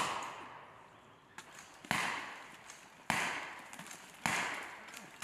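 Three rifle shots a little over a second apart, each a sharp crack followed by a long echo rolling through the woods.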